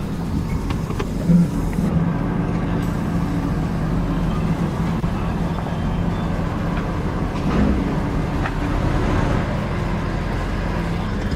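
Ford F-250's 6.7 L Power Stroke turbo-diesel V8 running steadily as the truck is moved.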